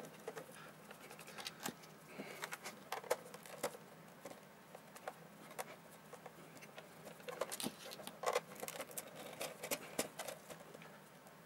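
Screwdriver backing self-tapping screws out of a Victor VC97 multimeter's plastic case: faint, scattered clicks and scratches of the driver tip in the screw heads and of the plastic housing being handled.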